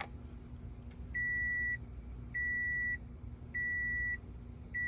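Toyota Camry Hybrid's door-open warning beeping: a steady high tone repeating about every 1.2 seconds, each beep a little over half a second long, four beeps starting about a second in, over a low steady hum. It sounds with the driver's door open, where it shouldn't, which the owner puts down probably to a faulty door sensor.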